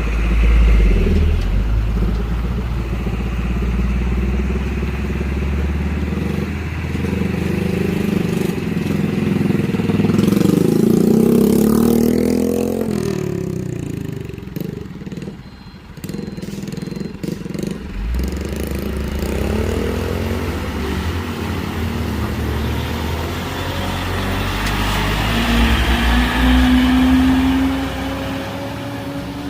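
Vehicle engines working up a steep, rough climb. The engines rev, rising and falling in pitch around the middle, ease off briefly, and then another engine builds with a rising pitch near the end.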